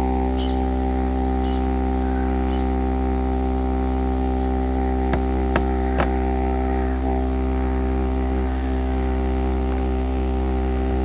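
Didgeridoo drone from buzzing lips, held on one steady low pitch with a rich stack of overtones, sustained on a single breath without circular breathing. Three short sharp clicks come just past halfway.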